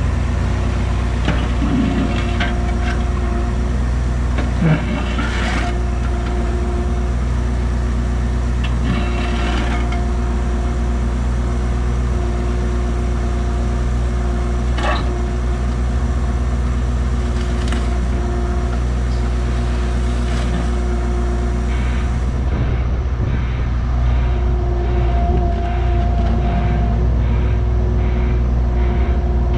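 Cat 301.7 CR mini excavator's diesel engine running steadily while digging, heard from the operator's seat, with a whine that comes and goes as the controls are worked and occasional knocks from the bucket in the ground.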